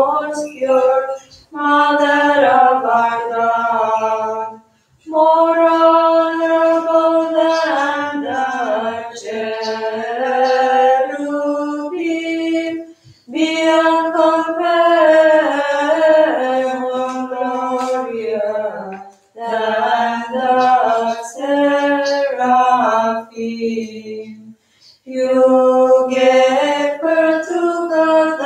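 Unaccompanied church singing of the hymn to the Theotokos that follows the commemoration of the Virgin Mary in the Divine Liturgy. It goes in long phrases with short pauses between them.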